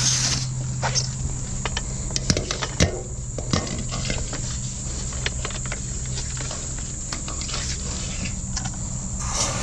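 Drain jetter's engine running with a steady low hum, with scattered sharp clicks and knocks of hose and gear being handled. A hiss cuts off just after the start.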